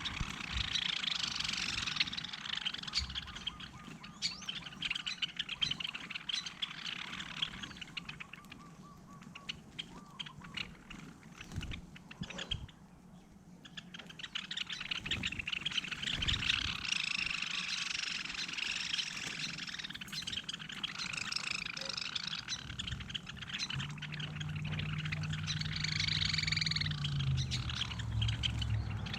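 Many small birds chirping and twittering at a bird feeder, with a brief lull about halfway through. A low steady hum comes in near the end.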